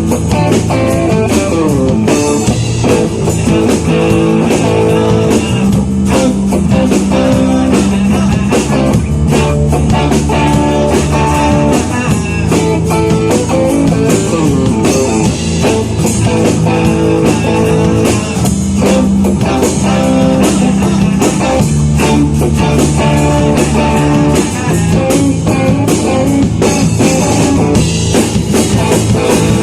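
A rock band playing live: guitar, bass and drum kit together in a steady rock song.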